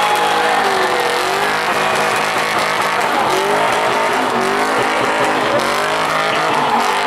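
1975 Ford F100 pickup's engine revving up and down repeatedly as its rear tyres spin and squeal in a smoky burnout slide.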